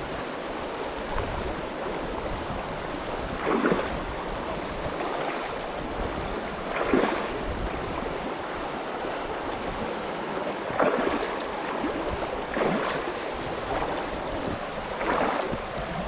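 Shallow river rushing steadily over stones, with a louder splash every few seconds, about five in all, as bare feet wade through the current.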